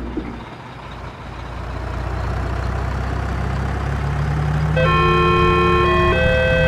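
Excavator diesel engine running steadily, growing louder as it approaches. About five seconds in, an electronic railroad crossing alarm starts, a steady multi-note tone stepping between pitches.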